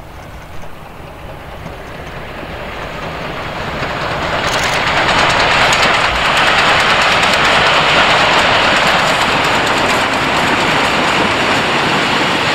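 Steam train headed by several steam locomotives approaching and passing close by. Its running noise grows over the first five seconds or so, then holds as a loud, steady rush with wheel clatter on the rails.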